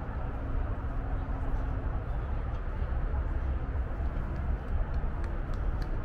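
Steady low rumble of road traffic, with a few faint high clicks near the end.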